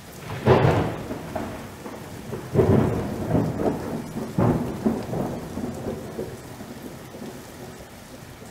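Thunderstorm: three loud thunder claps about two seconds apart, each rolling away, over a steady rain hiss that fades toward the end.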